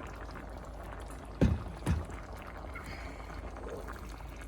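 Hot water being poured from a kettle into a pot of thickening orzo. Two loud knocks come about a second and a half in, half a second apart.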